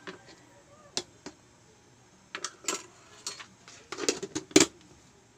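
Long-handled metal cooking utensil clanking and scraping against a pan while pancit noodles are stirred: irregular sharp knocks, bunching up and loudest near the end.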